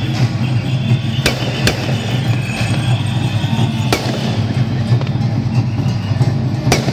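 Firecrackers going off singly, four sharp bangs spaced unevenly over a few seconds, over steady music and a low drone.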